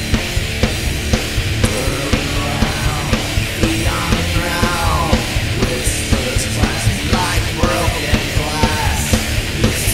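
Loud heavy rock music with a steady, fast drum beat.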